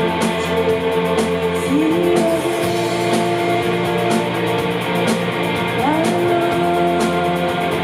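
Live rock band playing: two electric guitars holding long notes that slide up in pitch now and then, over a drum kit with steady cymbal strokes.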